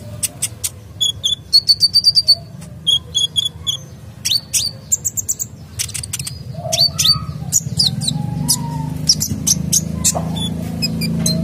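Caged male sunbird singing a fast run of sharp, high chirps, ticks and short whistled notes. A low hum rises underneath in the last few seconds.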